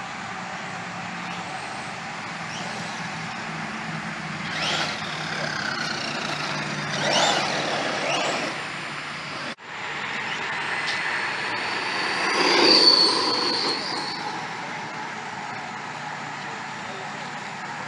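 Redcat Shredder RC monster truck's electric motor and drivetrain whining in three bursts as it speeds up and passes, with the whine rising in pitch each time. The loudest burst comes near the end, and a brief dropout just past the middle sounds like a cut. Steady tyre and ground noise runs underneath.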